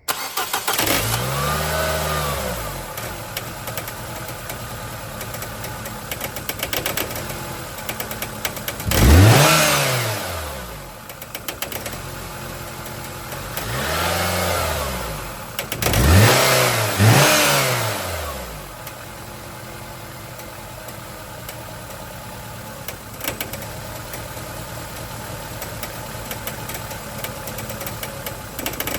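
Nissan Sentra four-cylinder engine running and being revved four times, each rev rising and falling in pitch, then settling to a steadier idle. A clanging from the worn belt tensioner is the owner's explanation for the racket, and the idle is unsteady because a vacuum hose was left unplugged.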